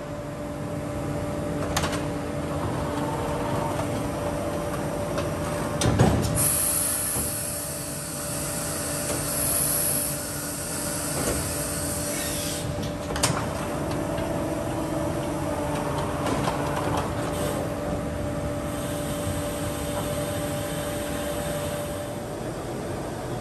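Steady hum of heavy machinery in a factory hall: two low tones held under a noisy background. A sharp knock comes about six seconds in and another around thirteen seconds, with stretches of high hiss between them and again near the end.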